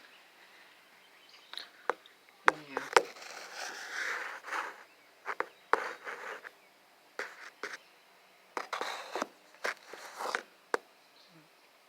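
Irregular sharp clicks and knocks, with short stretches of scraping and rustling between them.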